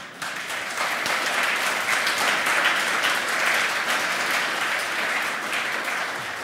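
Audience applause: many people clapping, building in the first second, holding steady, then dying away near the end.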